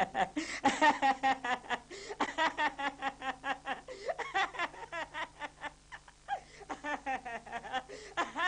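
Someone laughing in a long run of quick repeated giggles, with a short break about six seconds in.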